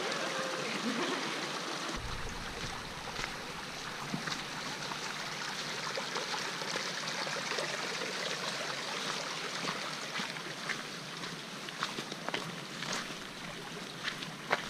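Shallow stream running over rocks, a steady watery rush, with scattered footsteps crunching on stones and gravel.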